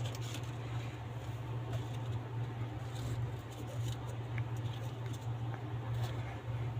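Steady low hum with a few faint small clicks over it.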